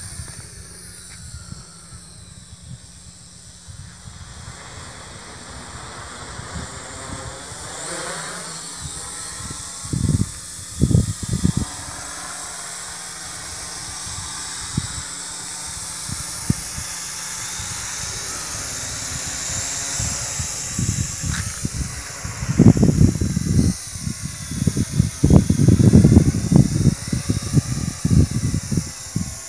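A small WLtoys Q333B toy quadcopter's rotors whirring as a high, hissing whine that slowly grows louder as it flies nearer. Gusts of wind buffet the microphone in short low rumbles, heaviest in the last several seconds.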